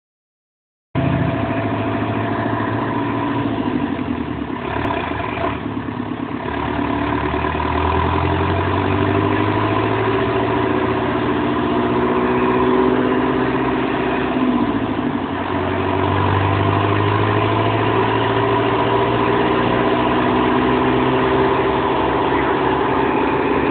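Cummins 4BT four-cylinder turbo diesel in a 1995 Ford Ranger running steadily on a chassis dyno. Its low note swells a little twice, with no full pull.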